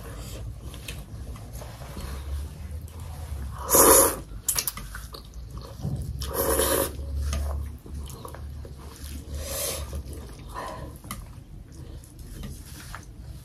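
Thukpa noodles being slurped from chopsticks: three hard slurps about three seconds apart, the first, about four seconds in, the loudest, with quieter eating noises between.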